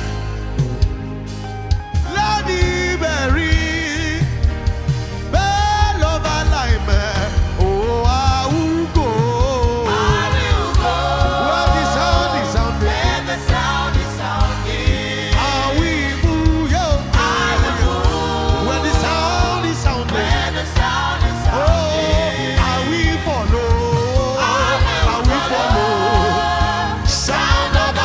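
Gospel praise-and-worship music: singers sliding through bending vocal runs over a band keeping a steady beat.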